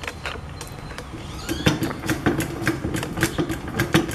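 Hydraulic floor jack being pumped, its lift arm rising now that it has been refilled with hydraulic jack fluid: a quick, uneven run of metallic clicks from the pump and handle, with a low steady tone joining in about a second and a half in.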